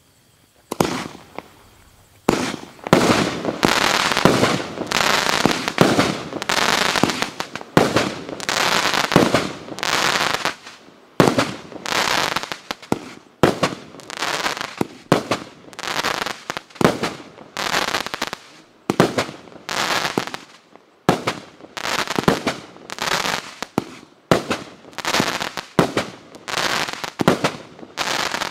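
25-shot 30 mm fan cake of brocade comets and silver chrysanthemum stars firing. It starts about a second in, then shoots in quick succession, roughly once a second, each shot followed by a short rush of noise.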